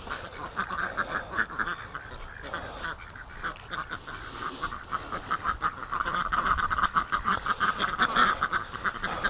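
A flock of Pekin ducks quacking continually, many short overlapping quacks, growing louder over the last few seconds.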